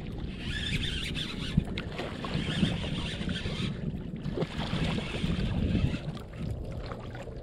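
Water splashing and sloshing as a hooked redfish thrashes at the surface close to a kayak, with a low wind rumble on the microphone.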